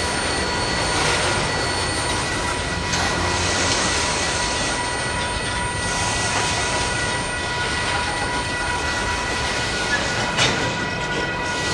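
Freight cars rolling past on the rails, a steady rumbling noise with a thin high wheel squeal held under it. A couple of sharp clacks come near the end.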